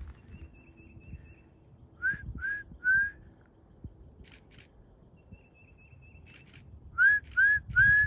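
Two sets of three short rising whistles, the sets about five seconds apart, with a faint run of high, even notes before each set.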